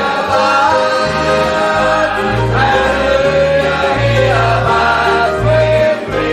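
Gospel music: a choir or group of voices singing over instruments with a steady bass line.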